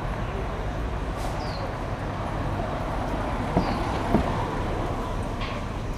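Street ambience: a steady hum of traffic and city noise. Two sharp knocks come a little past halfway, and a few faint high chirps are heard.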